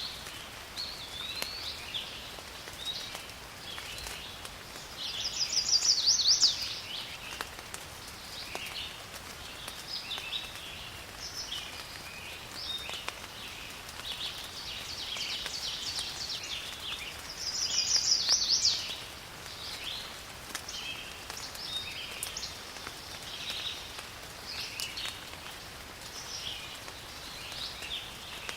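Rain falling steadily in a forest with many birds chirping and calling throughout. Twice a louder, rapid bird song stands out, about six seconds in and again about twelve seconds later.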